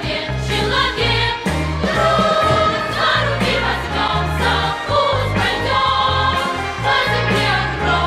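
Music: a bass line stepping through notes under sustained, choir-like melodic lines, with a light regular beat.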